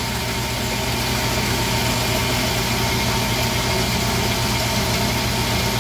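Tormach AF50 bandsaw running steadily, its blade cutting through a stack of aluminium bars: an even motor hum with a strong low tone under a steady hiss.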